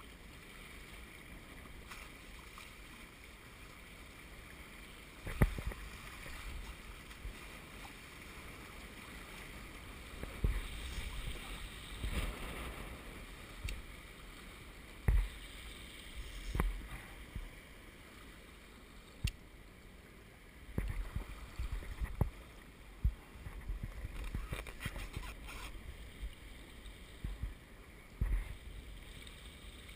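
Water rushing along the hulls of a Hobie Wave catamaran under sail, with about a dozen irregular low thumps.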